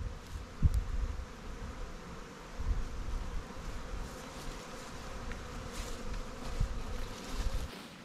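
Honey bees from a swarm buzzing all around, many bees in the air after the swarm has been shaken from a plum tree into a nuc box. Low rumbles and a few dull thumps from handling the box come and go, loudest early and around three seconds in.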